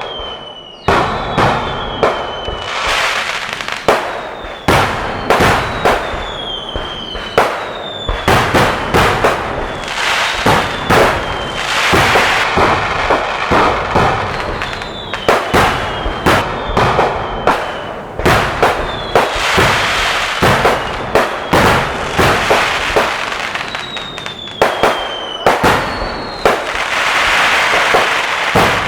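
Fireworks display: rapid, loud bangs of exploding shells and firecrackers, many a second at times, with falling whistles from whistling shells and a crackling hiss between the blasts.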